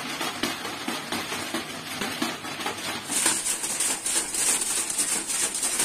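Paper and polythene kites tied to a ceiling fan's blades flapping and rattling in a fast, even patter as the fan turns slowly, held back by the kites' drag. About three seconds in the rattle gets louder and a high rustling hiss comes in.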